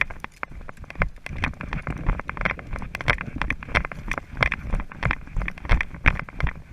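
Footsteps on rough dry ground, with gear and clothing rustling and clacking: irregular knocks and low thuds several times a second.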